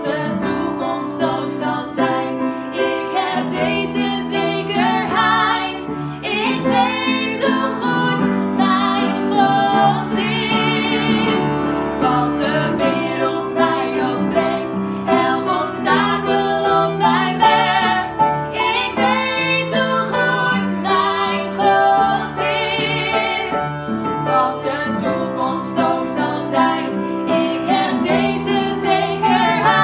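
Two women singing a song together with vibrato, accompanied by piano.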